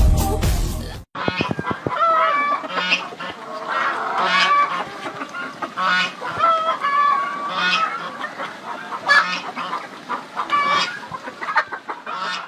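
Poultry calling: repeated squawking and clucking calls from several birds, overlapping. It follows a short stretch of music that cuts off suddenly about a second in.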